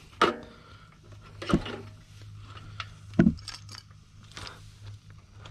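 Lobster halves set down and shifted on a charcoal barbecue's metal grill: three sharp knocks and scrapes of hard shell against the grate, each with a short ring.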